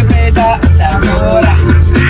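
Song with a sung vocal melody over a heavy bass line and steady beat.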